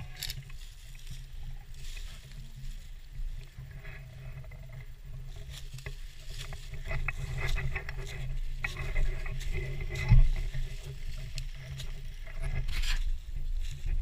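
Low rumble of wind and handling noise on a body-worn action camera, with scattered clicks and one heavy thump about ten seconds in.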